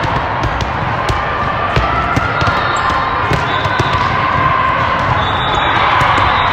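Busy indoor volleyball hall: volleyballs bouncing and being struck on hardwood courts, many sharp knocks over a steady echoing din of voices.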